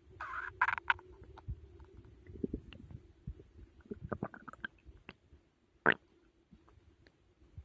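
Human stomach gurgling and rumbling while digesting a big meal, heard close up: irregular small pops and gurgles over a faint low hum. There is a brighter burst in the first second and one louder gurgle about six seconds in.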